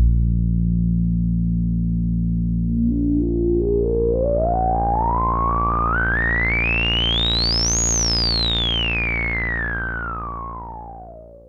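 Moog Werkstatt-01 analog synthesizer holding one steady low note through its resonant ladder filter. A bright resonant peak glides slowly up in pitch to a high point about two-thirds through, then back down. The note fades out near the end.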